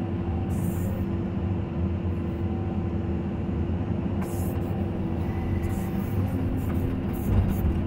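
Caterpillar 320 hydraulic excavator's diesel engine and hydraulics running steadily under working load, heard from inside the cab as the bucket digs, swings and dumps soil. A louder thump comes near the end.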